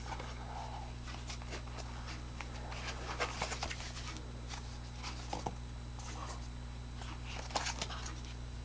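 A flashlight's cardboard box being opened and its contents handled: faint, scattered rustles, scrapes and small taps, over a steady low hum.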